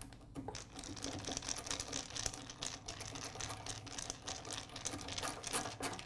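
Hand screwdriver turning a screw to fasten a plastic cord clip to a saw body, a rapid, irregular clicking.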